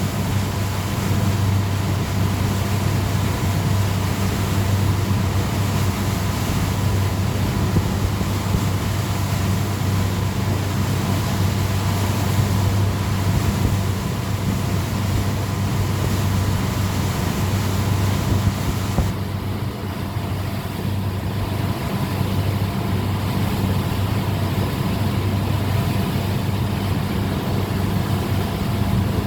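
Water-ski tow boat's engine running steadily at towing speed: a steady low drone under a constant hiss.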